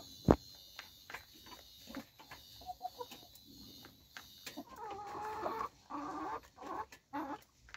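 Light Brahma chickens clucking and calling while they peck at a feeder, with scattered light taps; their calls come in a run starting about five seconds in. A single sharp knock just after the start is the loudest sound.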